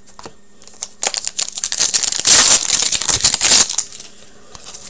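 Crinkling of a foil trading-card pack wrapper being handled and torn open, starting about a second in and stopping shortly before the end.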